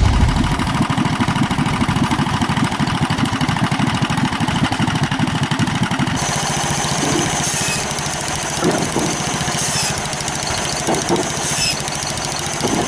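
A small engine running with a fast, even firing rhythm. About six seconds in the sound changes to a steadier machine noise with a high whine and short, sharper high-pitched bursts about every two seconds.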